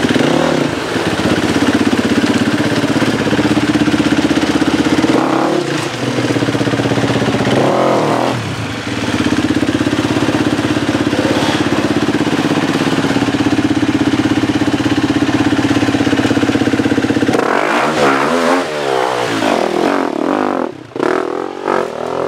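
Enduro dirt bike engine running hard and being revved, its pitch dipping and rising again several times, with fast up-and-down rev swings near the end as the rider works the throttle over rocks.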